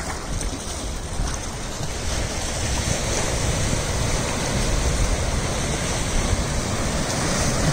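Sea surf breaking and washing against a concrete tetrapod breakwater, a steady rushing that grows louder about two seconds in, with wind rumbling on the microphone.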